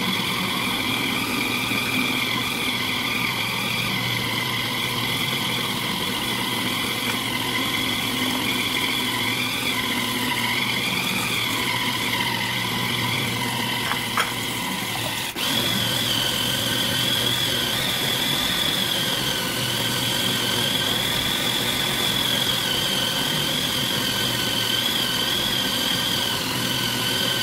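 Philips Walita food processor motor running with a steady high whine as it chops raw chicken with oats, egg, onion and green onion. It dips briefly about halfway through and then runs on.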